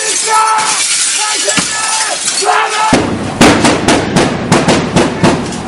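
Men shouting, then about three seconds in a rapid run of hard blows, several a second, with glass breaking: police officers smashing their way in through a house window.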